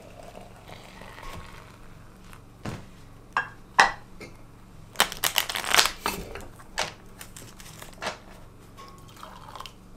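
A deck of UNO cards being shuffled: a few separate snaps and taps, then a quick riffle of card edges about five seconds in, followed by a couple more taps.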